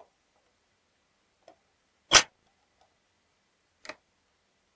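Small metal parts of a GU multipoint door lock clicking as they are fitted back into the lock case by hand: a few light clicks and one sharp, louder click about two seconds in.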